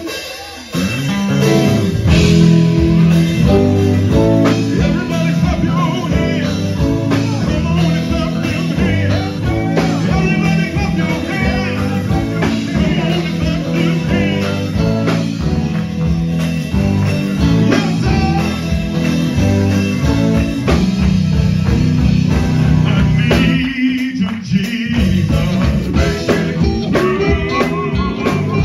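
Live gospel band music: electric guitar and drum kit playing a steady groove while a lead singer sings into a microphone. The low instruments drop out for about a second near the end, then come back in.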